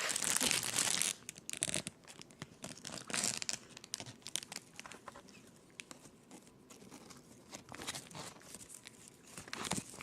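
Packaging being crinkled and rustled in the hands, loudest for about the first second, then quieter intermittent crackles with a few louder rustles.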